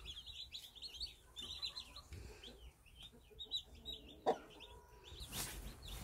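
A brood of newly hatched Cheonggye chicks peeping, many short high chirps overlapping, thinning out briefly in the middle. A single soft knock about four seconds in.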